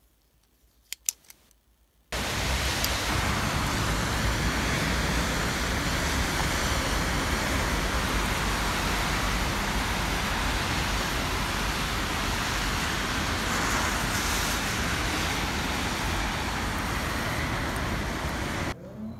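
Two sharp clicks about a second in. Then, from about two seconds in, a loud, steady, rushing city-street noise with road traffic, which cuts off just before the end.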